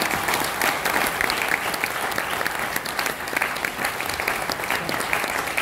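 Audience applauding: many people clapping together in a dense, steady patter.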